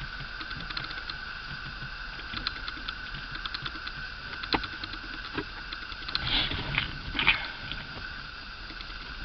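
Scattered small clicks, taps and light scrapes of hands working at a Toyota pickup's steering column and turn-signal switch, with a few louder knocks about four and a half seconds in and between six and seven and a half seconds, over a steady high-pitched hum.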